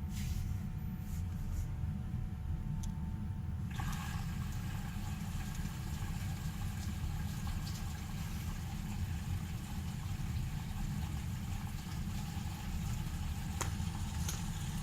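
Bosch washing machine starting its cycle: about four seconds in, water begins rushing in steadily as it fills, over a low rumble.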